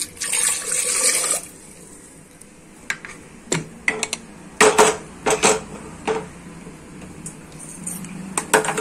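Water pouring into an aluminium pressure cooker over potatoes for about a second and a half. Then a series of short metal clanks and knocks as the cooker is closed with its lid and whistle weight and set on the gas stove.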